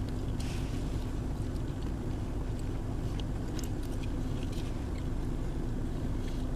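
Steady low hum inside a car with the engine and heater running, with faint wet clicks of someone chewing food.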